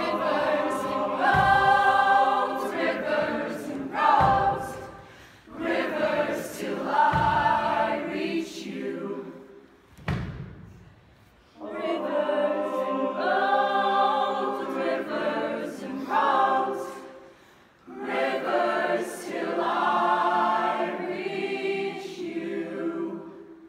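Show choir of mixed voices singing in harmony, in phrases broken by four low thuds about three seconds apart in the first half. From about halfway the choir holds long chords, dying away just before the end.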